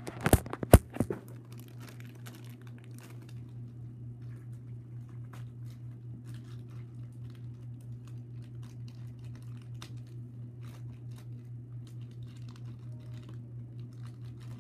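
Plastic blister packaging crinkling and clicking faintly as it is worked open by hand, over a steady low hum. A few sharp knocks come in the first second.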